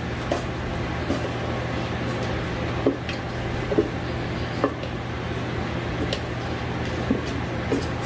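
Light, scattered knocks and clatters of a bread-machine pan being handled as risen dough is pulled out of it, over a steady low hum.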